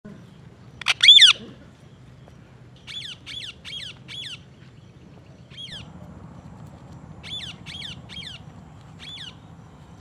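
Rose-ringed (green ringneck) parakeet calling: a loud double screech about a second in, then runs of short, high squawks that fall in pitch, four in quick succession, a single one, three more and a last one near the end.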